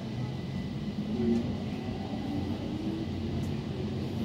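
Stockholm metro train standing at a platform, heard from inside the carriage: a steady low hum and rumble with a few faint passing tones.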